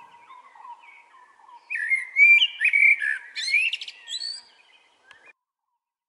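Male common blackbird singing: a loud fluting, warbled phrase of sliding notes that ends in high twittering, stopping about a second before the end.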